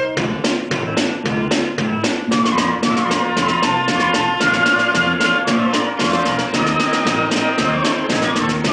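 Small high school concert band playing, a drum kit keeping a steady beat under a woodwind and brass melody.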